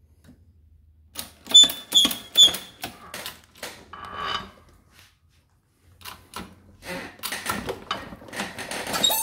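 Steel coin-ring press tooling being handled. Several sharp metal clinks ring briefly as the die plate and reeding die are set on the press bed, followed a little later by a quicker run of clicks and rattles.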